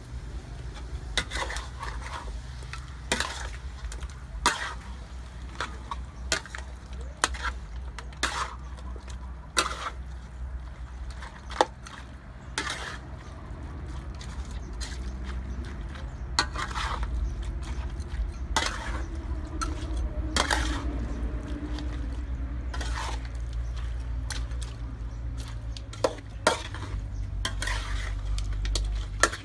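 A metal spatula scraping and clinking against a steel wok as chunks of duck meat are stirred, in sharp, irregular strokes about every second. A steady low rumble runs underneath.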